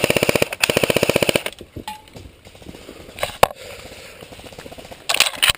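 Airsoft rifles firing full-auto: two fast bursts of about twenty shots a second in the first second and a half, then scattered single shots, and another short burst near the end.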